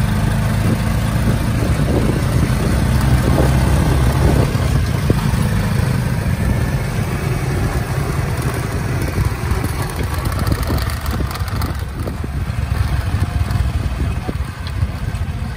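Small motorcycle engine of a motorbike-and-sidecar taxi running steadily as it rides along. It gets a little quieter in the second half.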